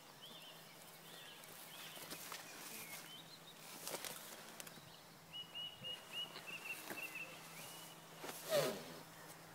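Quiet outdoor ambience with small birds chirping in short repeated phrases, faint rustles and clicks, and one brief louder rushing noise near the end.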